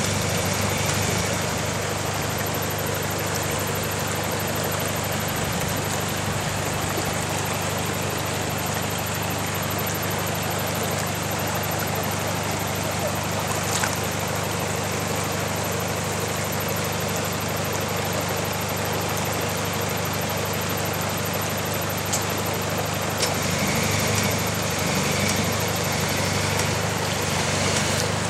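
Toyota Hilux D-4D's diesel engine idling steadily, a little louder in the last few seconds.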